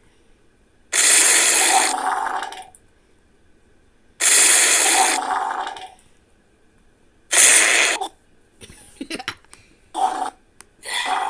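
Wet fart sound effects: three long sputtering bursts about three seconds apart, then a quick run of crackles and two shorter bursts near the end.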